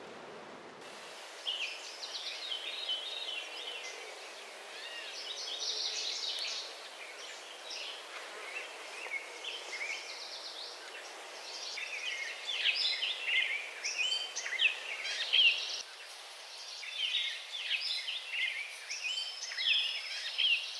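Several forest birds singing at once, many short chirps, trills and whistles overlapping throughout, over a steady faint hiss.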